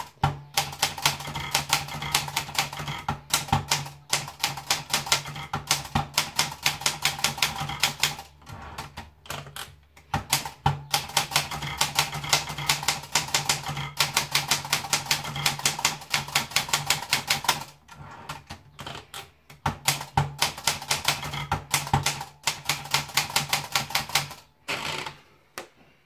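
Olympia Splendid 33 manual portable typewriter being typed on: rapid keystrokes and typebar strikes in three long runs with short pauses between them.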